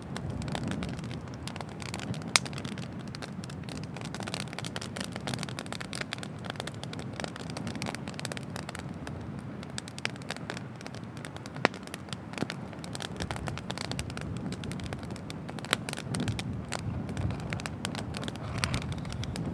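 Wood bonfire crackling, with a dense run of small snaps and a few louder pops scattered through, over a steady low rumble.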